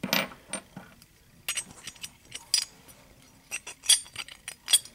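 Metal parts of an opened seven-lever safe lock clicking and clinking against each other as they are handled: irregular short taps, the loudest near the end.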